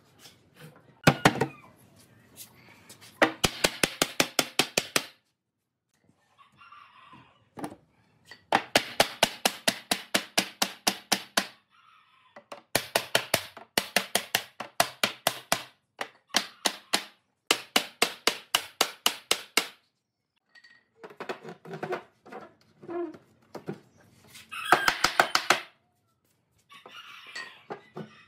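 Rapid runs of mallet blows knocking the wooden joints of a pine bed frame together, about five sharp knocks a second, in several bursts of a few seconds each with short pauses between them.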